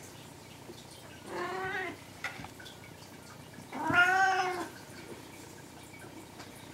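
A domestic cat meowing twice, once about a second and a half in and again around four seconds in; the second meow is louder and longer.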